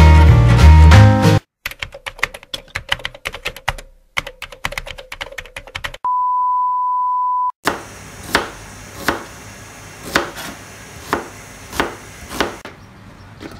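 Background music cuts off, followed by a few seconds of rapid clicking and then a single steady beep lasting about a second and a half. After the beep, a kitchen knife chops red onion on a plastic cutting board in steady strokes, a little more than one a second.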